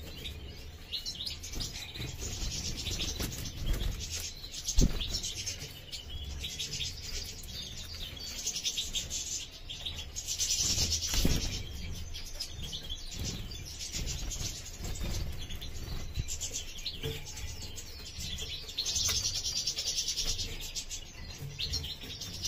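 European goldfinches twittering and chirping in bursts of high, rapid notes, with one dull thump about five seconds in.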